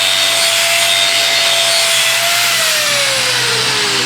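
Stock-car racing engines at high revs on a race broadcast, a steady engine note over loud track noise that drops in pitch over the last second or so.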